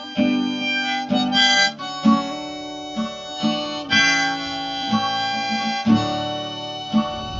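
Background music: harmonica playing a melody over plucked acoustic guitar, with a new note or strum about every second.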